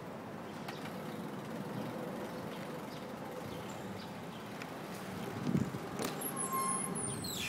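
City street ambience heard while riding a bicycle: a steady hum of traffic and street noise with faint ticks. Near the end there is a brief high squeal that falls in pitch.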